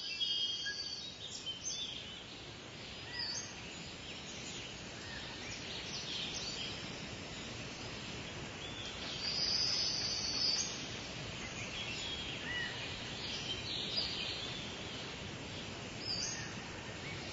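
Birds chirping and calling on and off over a steady outdoor background hiss, busiest about ten seconds in.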